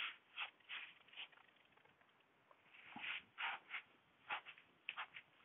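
Whiteboard duster rubbed back and forth across a whiteboard: a run of short scrubbing swishes, about two or three a second, that pause about a second and a half in and pick up again near three seconds.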